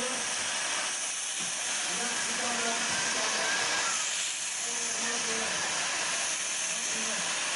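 Small steam tank locomotive blowing steam from its open cylinder drain cocks, a steady hiss, with crowd voices faintly in the background.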